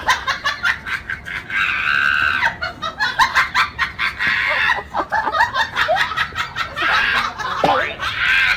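Rapid, high-pitched, excited vocal sounds like laughter, in short bending bursts, with one longer held cry about two seconds in.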